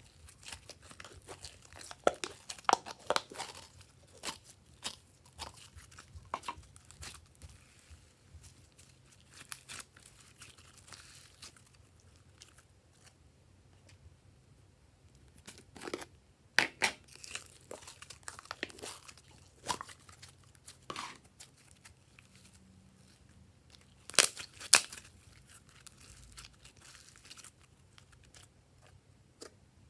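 Glossy slime squeezed out of a plastic jar and pulled and twisted by hand: crackles and pops at irregular moments, in clusters a few seconds in, around the middle and later on.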